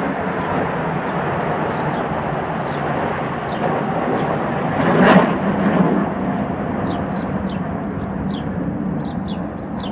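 Jet engines of a formation of Eurofighter Typhoons flying overhead: a steady roar that swells to its loudest about five seconds in. Birds chirp over it, more often near the end.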